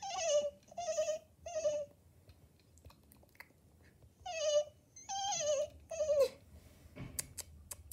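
A child's voice imitating a worried pet's whimper: six short high whines in two groups of three, the last sliding down in pitch. A few small clicks near the end.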